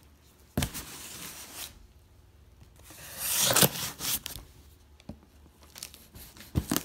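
Knife blade slitting the packing tape along a cardboard box's seam: two longer rasping cuts with a pause between, then a few short sharp knocks near the end.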